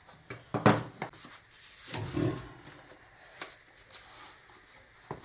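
Packaging and hardware being handled: several sharp knocks and clicks, the loudest a little under a second in, with a soft rustle around two seconds in and a few lighter ticks later.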